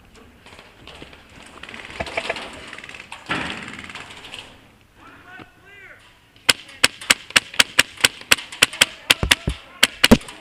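An HPA airsoft gun fired semi-automatically: a string of about eighteen sharp shots, roughly five a second. They start about six and a half seconds in and stop just before the end.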